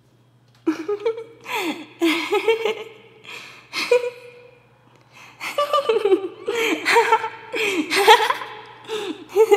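A person giggling in short, high-pitched bursts of laughter, with a brief lull about halfway through.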